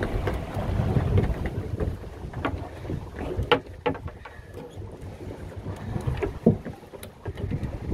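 Wind rumbling on the microphone over the noise of a fishing boat at sea, with scattered sharp knocks, the loudest about three and a half and six and a half seconds in.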